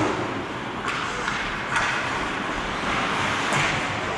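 Ice hockey rink sound: skate blades scraping the ice over a steady hiss, with two sharp knocks about one and two seconds in.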